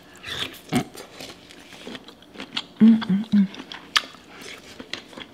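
Close-miked wet chewing, lip-smacking and sucking of a person eating a saucy seafood boil by hand, with scattered mouth clicks. A short hummed vocal sound comes about three seconds in.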